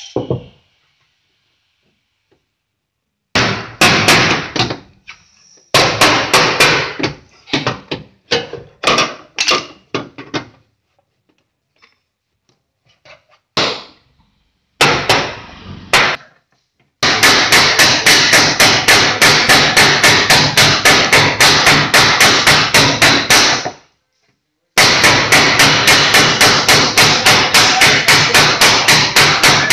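Body hammer knocking out a dent in an Audi Q3's front fender. The knocks start about three seconds in and come in irregular clusters at first, then settle into a fast, even run of taps, about five a second, with a short break before the end.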